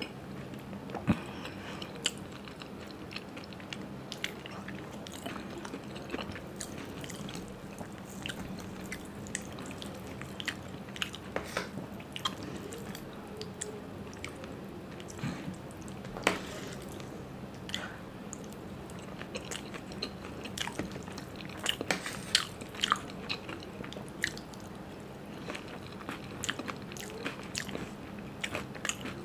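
Close-miked eating of curd-topped raj kachori with sev: wet chewing and biting, broken by scattered sharp crunches and clicks.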